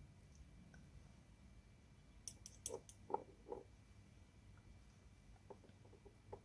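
Near silence broken by a short run of light clicks and taps, about six in a second and a half starting a little over two seconds in, with a couple of faint ticks near the end: a paintbrush and watercolour palette being handled while paint is picked up.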